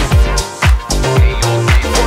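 Background dance music with a steady beat: a kick drum about twice a second under a bass line and hi-hats.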